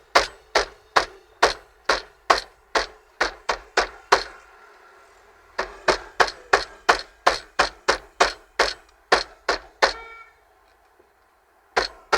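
Repeated knocks on the stock car stereo head unit of a 2002 Toyota Previa, about three a second, in runs broken by a pause about four seconds in and a longer gap near the end. The unit is being hit to coax out its intermittent missing sound.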